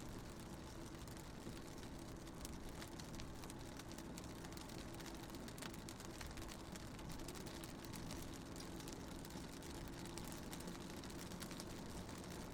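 Raindrops ticking on a car's window, heard from inside the moving car over a steady low drone of engine and road.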